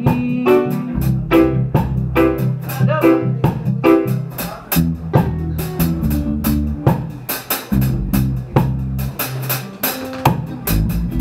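A live band playing an instrumental passage between sung lines: electric guitar and drum kit with keyboard, drums keeping a steady beat under low bass notes.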